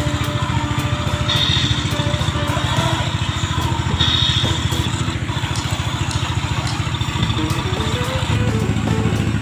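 Truck engine sound running steadily with fast, even pulses, over background music whose melody comes through more clearly near the end.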